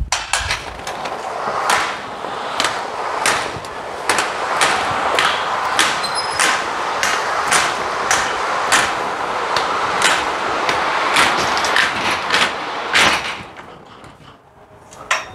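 The sliding roof of a curtainsider trailer running along its side rails as it is pulled open: a steady rolling rattle with sharp clacks about twice a second. It stops about thirteen seconds in.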